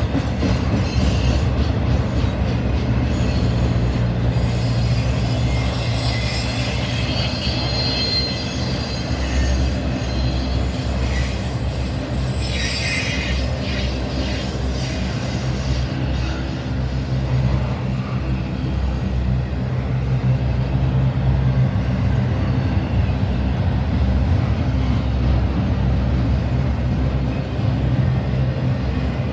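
Norfolk Southern intermodal freight train rolling past, its trailer and container cars making a steady rumble of wheels on rail. High wheel squeals come through over the first several seconds and again briefly about 13 seconds in.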